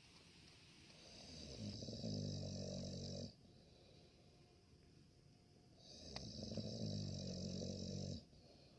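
Pit bull-type dog snoring while dozing: two long snores, each about two seconds, a few seconds apart.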